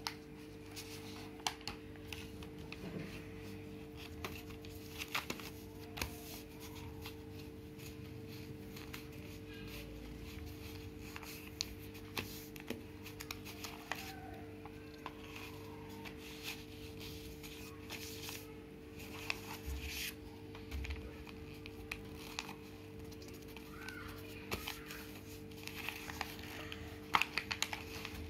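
A sheet of pink paper being folded, unfolded and creased by hand, with intermittent crinkling and rustling. A steady low hum runs underneath.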